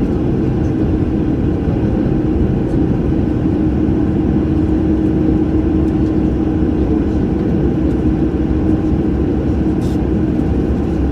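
Boeing airliner jet engines running: a loud, steady, low rumble with a steady hum that fades out near the end.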